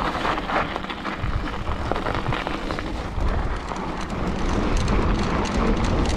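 Schwalbe Ice Spiker Pro studded mountain-bike tyres rolling downhill over packed snow, a continuous crunching crackle of many fine clicks. Wind buffets the microphone as a low rumble that grows louder in the second half.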